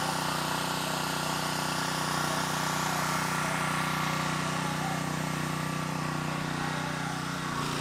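Small gasoline engine of a Predator pressure washer running steadily at constant speed, with no change in pitch.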